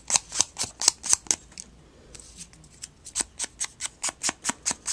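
Small Memento ink pad dabbed quickly against the edges of a paper flower: a run of light sharp taps, about four or five a second, breaking off for a second and a half in the middle before starting again.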